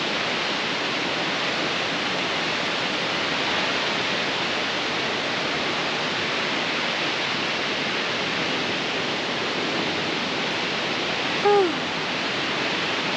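Steady, even hiss of falling water in rainforest. About two-thirds of the way through comes one short call that rises and falls in pitch.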